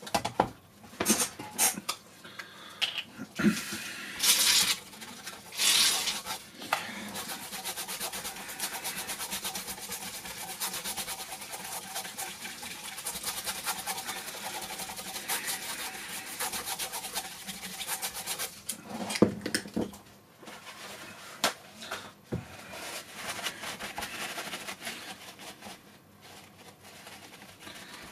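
Flux residue being scrubbed off a motherboard's freshly soldered joints. There are a few short, loud rustling bursts first. From about seven seconds in there is a fast, even rasping that runs to around nineteen seconds, then lighter scrubbing on and off.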